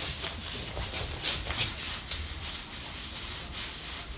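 Thin black plastic bin bag crinkling and rustling as bare toes grip it and drag it across a laminate floor, with a few sharper crackles in the middle: a toe-gripping exercise against flat feet.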